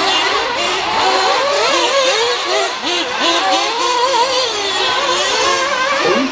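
Several nitro RC off-road cars' small two-stroke glow engines revving while racing, their pitch rising and falling constantly as they accelerate and brake, several engines overlapping.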